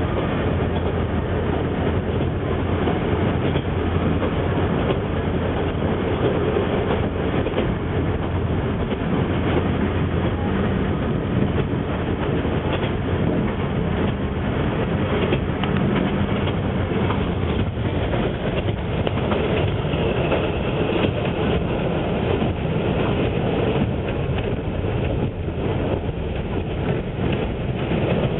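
Shimabara Railway KiHa 20 diesel railcar running at speed, heard from inside the passenger cabin: a steady engine hum under the continuous noise of the wheels on the rails.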